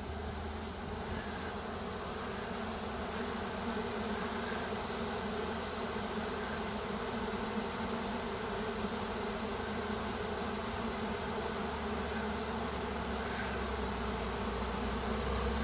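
Honey bee swarm in flight: a steady, dense buzz from thousands of bees flying around the hive as the colony swarms, a little louder near the end.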